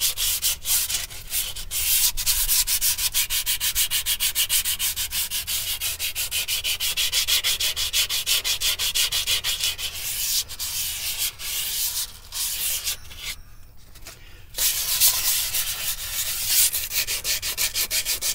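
Sandpaper rubbed by hand in quick back-and-forth strokes on the linings of drum brake shoes, knocking the glaze off the friction surface. The rubbing stops for about a second near two-thirds of the way through, then starts again.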